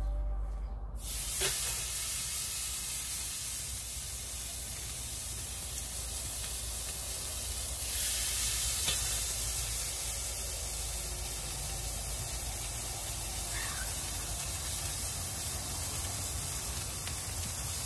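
Dry-aged Black Angus spider steaks sizzling steadily as they sear, starting about a second in, with a couple of faint clicks.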